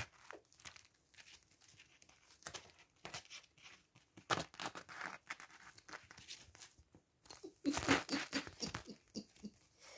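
Kittens clawing and scrambling on the mesh and fabric walls of a soft-sided pet playpen: irregular scratching and rustling, busiest about eight seconds in.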